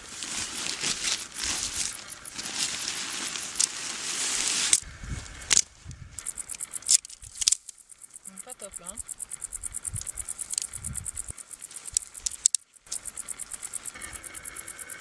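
Nylon fabric of a Quickhiker hiking tent rustling and crinkling as it is unpacked and spread out, loudest in the first five seconds. Quieter handling follows, with scattered sharp clicks.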